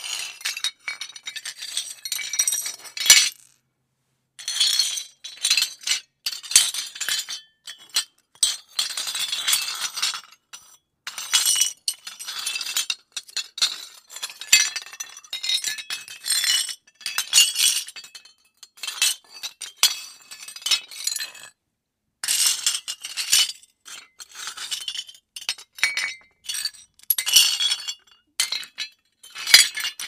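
Rubble breaking up: dense, bright crackling and clattering of small hard fragments, coming in clusters of rapid impacts with short pauses between them.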